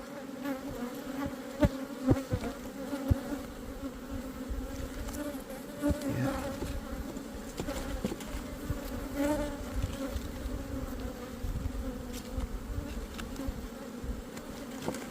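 Honeybees buzzing steadily in a droning hum from an open hive. A few light knocks come in the first few seconds.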